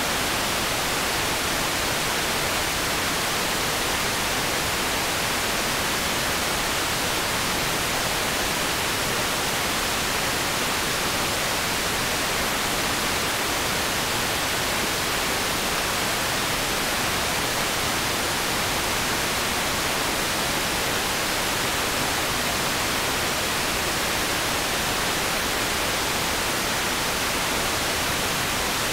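Steady, unchanging static hiss standing in for a missing programme sound track: no voice, music or tones, only noise.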